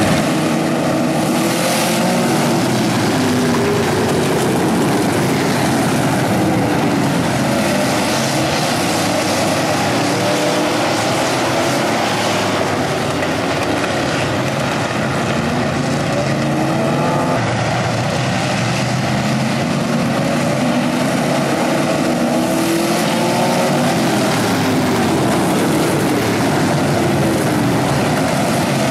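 Engines of a pack of street stock race cars running on a dirt oval, several at once, their pitch rising and falling as cars rev and pass by.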